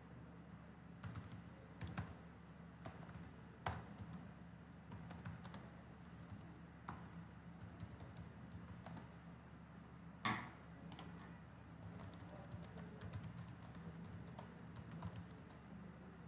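Typing on a computer keyboard: faint, irregular key clicks in short runs, with one louder key strike about ten seconds in, over a faint steady low hum.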